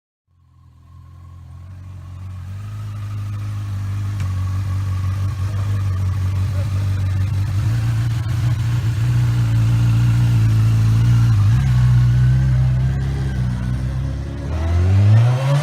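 An engine running steadily as it fades in, then revving up near the end.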